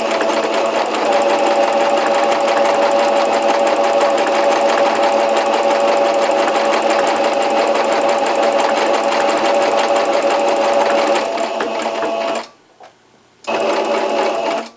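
Singer Brilliance 6180 sewing machine running at a steady speed, sewing a decorative stitch through fabric. It stops about twelve seconds in, then runs again for about a second before stopping.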